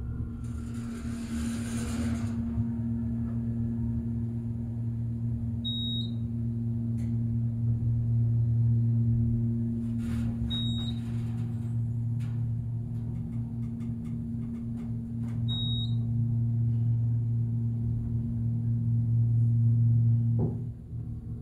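Hydraulic elevator's pump motor running with a steady low hum as the car rises, after a brief hiss in the first couple of seconds. Three short high beeps about five seconds apart mark floors being passed. The hum cuts off about twenty seconds in as the car stops.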